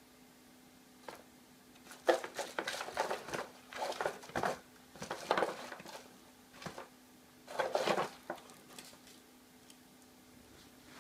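An Egyptian Mau's paw scrabbling inside a small cardboard box through a hole in its top: irregular bursts of scratching and rustling on the cardboard over about six seconds, stopping a couple of seconds before the end.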